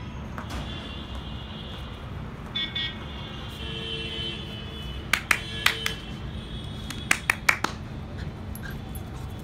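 Outdoor background of steady low rumbling with distant traffic and a few brief high tones. Two short clusters of sharp taps, about five seconds in and again about two seconds later.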